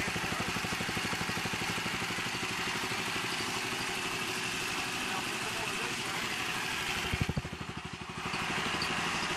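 Honda 8 HP single-cylinder engine running steadily with an even, rapid firing beat while driving alternators as a load, its gasoline line pinched off and hydrogen-oxygen gas from electrolysis dry cells fed into the intake. The sound dips and goes duller briefly about seven seconds in.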